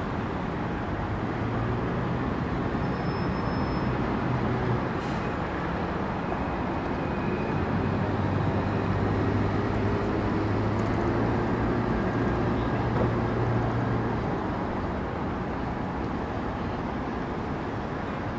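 Steady road traffic of buses and cars running past, with a low engine hum that swells for several seconds in the middle.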